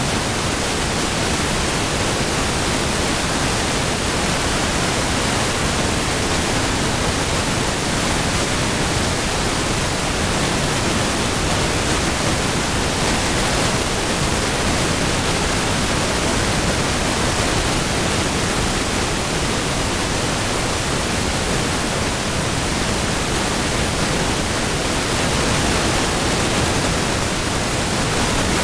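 Shrimp sizzling in a frying pan: a steady, even hiss that does not let up.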